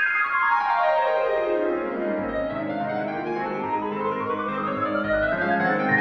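Background keyboard music of held, piano-like chords. Its tone is swept slowly down over the first two seconds and then gradually back up.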